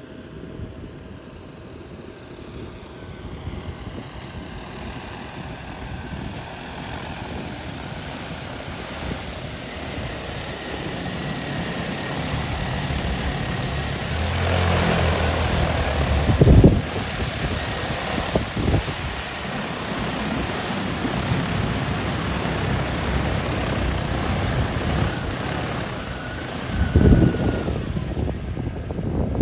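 DJI Agras T40 crop-spraying drone's propellers buzzing, growing steadily louder over the first half as it flies in and comes to hover close by. There are two brief low thumps, about halfway through and near the end.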